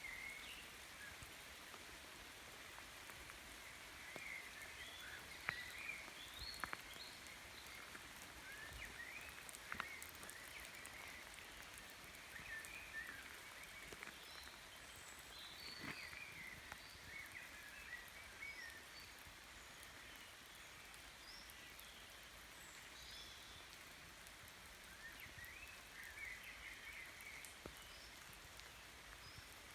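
Faint, steady rush of a flowing river with scattered short bird chirps and song phrases over it, and a few sharp clicks about five to ten seconds in.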